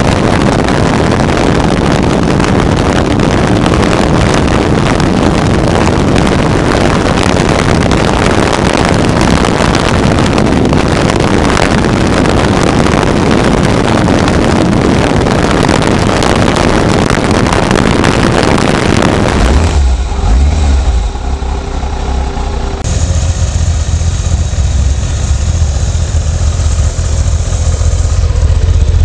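Kawasaki ZZR1200 inline-four heard from on the bike at high speed, engine and wind blended into a dense, steady rush. About 20 s in it changes abruptly to the stationary bike's exhaust heard close to the twin silencers, a steady deep rumble.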